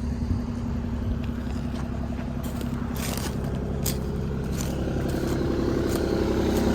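Kubota compact excavator's diesel engine running steadily, growing slightly louder, with scattered scrapes and clicks from about two and a half seconds in.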